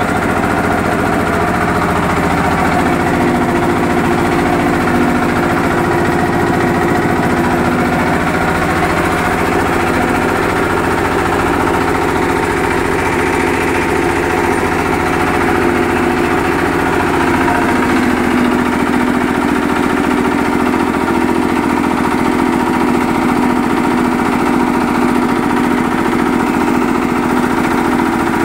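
Yanmar TF155 single-cylinder diesel engine running steadily as it belt-drives a Puma 10 HP three-cylinder piston air compressor on a test run. Its tone shifts slightly about nine and eighteen seconds in.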